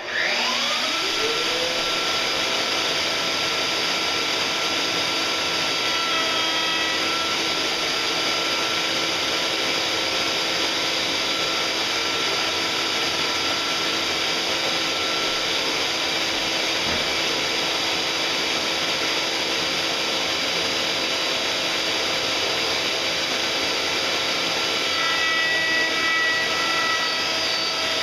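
Router in the Festool CMS router table, fitted with a beading bit, spinning up to speed in about a second and then running steadily at full speed with a high whine.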